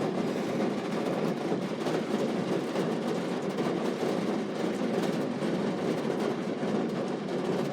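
Steady rain falling, an even hiss with no thunderclaps.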